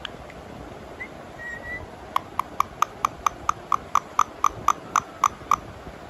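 Indian ringneck parakeet making a run of about fifteen short, sharp clicks, about four a second, starting about two seconds in, after a couple of faint short whistles.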